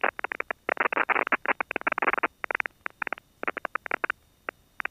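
Rapid, irregular crackling bursts on the light aircraft's headset and radio audio, thinning out and stopping about four seconds in, with a couple of last clicks near the end.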